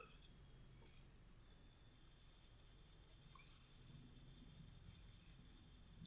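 Faint, quick strokes of a pencil scratching on sketchbook paper while shading a portrait's eyes, coming about three or four a second from a couple of seconds in.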